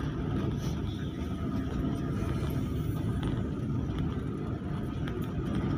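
Steady engine and tyre noise of a vehicle driving along a paved road, heard from on board, a low, even rumble throughout.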